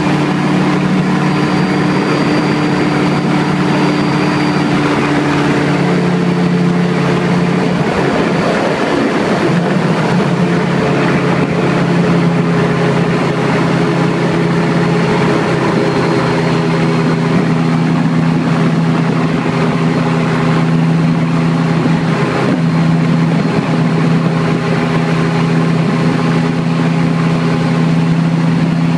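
Ultralight aircraft's engine and propeller running steadily in flight, heard from inside the cockpit. The engine note shifts in pitch a few times.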